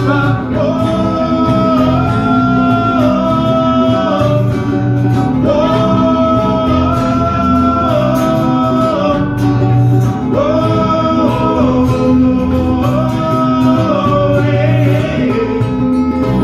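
Live acoustic band playing: strummed acoustic guitars and electric bass under a sung line of long held wordless notes that step up and down.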